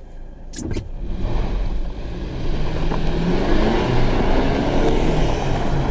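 Ford Bronco Sport accelerating hard from a stop on snow at full throttle, its engine sound building gradually over the first few seconds and then holding. The traction control has cut the power and is slowly rolling it back on.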